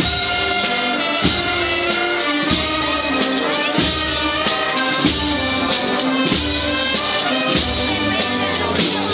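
Brass band music: trumpets and trombones holding sustained notes over a slow, steady drum beat, about one stroke every second and a quarter.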